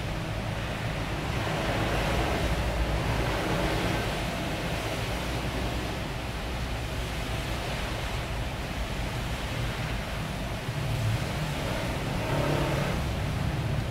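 Steady rushing background noise with a low hum underneath. The soldering iron and wick make no distinct sound of their own.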